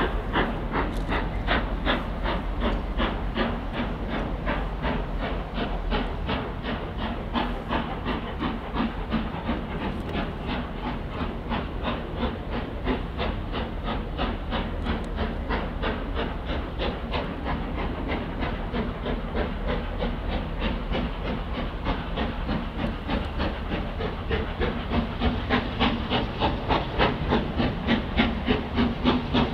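GWR Castle class 4-6-0 No. 7029 'Clun Castle' working hard under steam, its four-cylinder exhaust giving a rapid, even beat that grows louder near the end as the locomotive comes closer.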